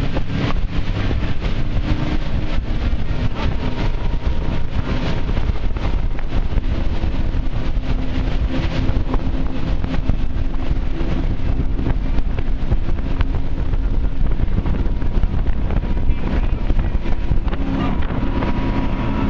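Sport-fishing boat running fast on open sea: steady engine drone mixed with water rushing and spraying off the hull and wind buffeting the microphone.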